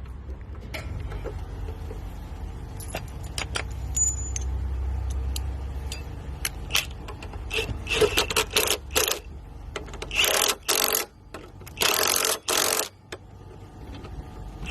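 Metal tools clicking and working the mounting bolts of an electric scooter's front disc-brake caliper as they are tightened: scattered clicks, then two dense ratcheting bursts of about a second each in the second half.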